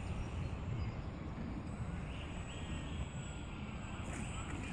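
Uneven low rumble of wind on the microphone over a faint open-air background, with no clear engine or motor sound.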